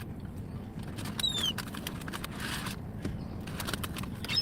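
A gull gives one short, high call that falls in pitch, about a second in, over faint scattered clicks.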